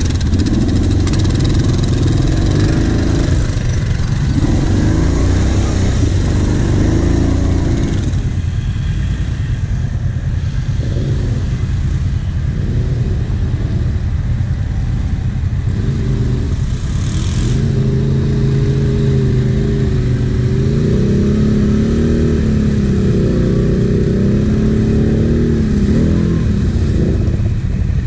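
Quad bike (ATV) engines running: a steady low engine rumble close by, with a quad revving up and down, its pitch rising and falling, as it pushes through deep mud.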